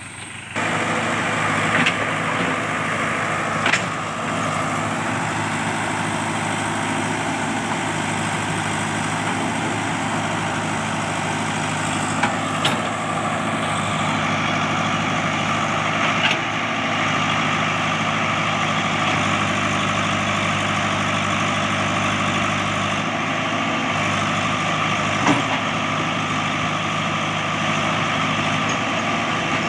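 Backhoe loader's diesel engine running steadily, with a few sharp knocks or clanks now and then.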